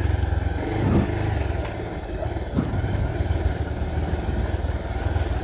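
Motorcycle engine running while riding along a small road: a steady low rumble, with a couple of brief knocks about one and two and a half seconds in.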